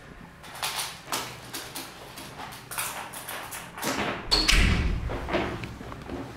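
Footsteps on a wooden floor, about two a second, with a heavier thump about four seconds in.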